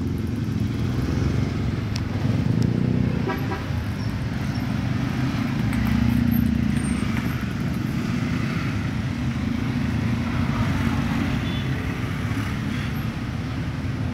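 Steady road traffic noise, with vehicle engines running close by.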